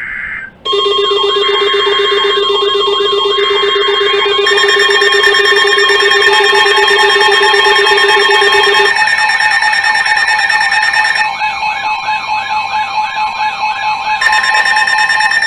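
Emergency Alert System tones from radio receivers overlapping: short buzzy data-header bursts, then loud steady alert tones layered with a wavering, siren-like alarm tone. The tone mix shifts about nine seconds in and again about eleven seconds in. These tones signal the start of a new warning.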